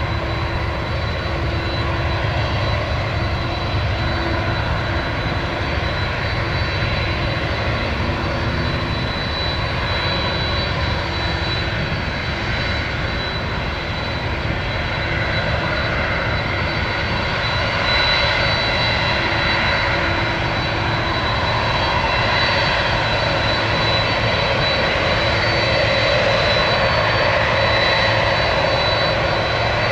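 Boeing 767-300's two jet engines running as the airliner taxis: a steady rumble with a thin high whine, getting a little louder about halfway through.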